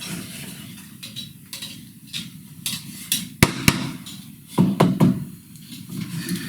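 Wooden drawer pieces handled and pressed together onto cut-off brad alignment pins, with light knocks and rubbing, two sharp clicks about halfway and a few louder knocks a second later.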